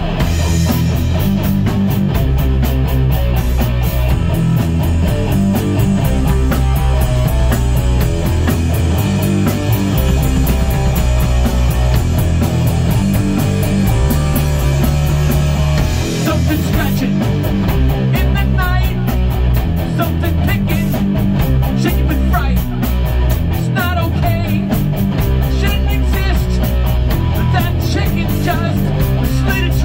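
Loud rock music with a heavy bass line and fast, steady percussion; a wavering, bending lead line comes in a little past halfway.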